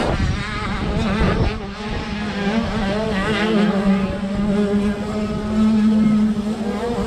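Motocross bike engine idling with a steady, even hum, swelling a little louder about two-thirds of the way through.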